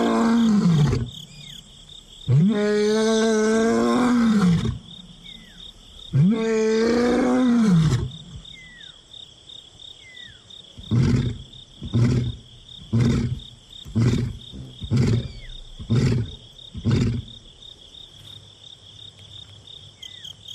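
Male lion roaring: the tail of one long moaning roar, two more full roars, then a run of seven short grunts about one a second that ends the roaring bout. It is a long-distance contact call to find his missing brother. A steady cricket trill runs behind.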